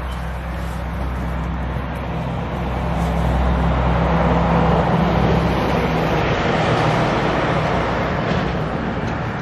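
Steady rushing noise with a low hum underneath, like a vehicle passing, swelling a few seconds in and easing off near the end.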